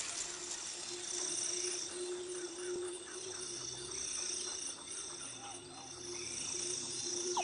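Seals calling underwater: repeated chirps and short trills over a steady low tone, with high pulsed whistles, ending in a fast downward-sweeping call.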